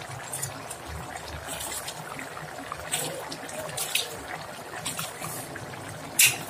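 Rice boiling in its cooking water in a pot, a steady bubbling, with a few short clicks as a metal hand-held lemon squeezer is pressed over it; the sharpest click comes near the end.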